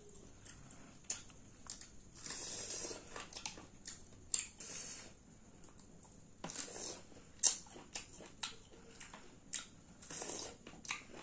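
Close-up eating sounds of green mussels in sauce: wet mouth smacks, slurps and chewing, with many short sharp clicks scattered throughout, the sharpest a little past the middle.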